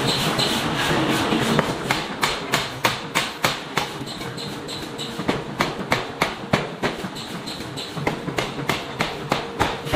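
Power forging hammer striking a red-hot steel block in quick, regular blows, about three a second after the first couple of seconds, over a steady machine hum.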